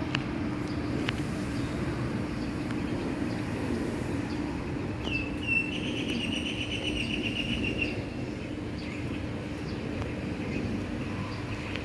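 Steady rumble of a Boeing 737-800's CFM56-7B jet engines as the airliner flies past. A bird calls with a rapid trill for a few seconds midway.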